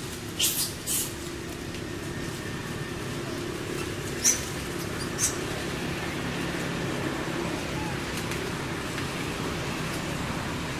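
Short, sharp crackles of dry leaf litter, probably from a monkey stepping or foraging. There are two near the start and two more about four and five seconds in, over a steady low background rumble.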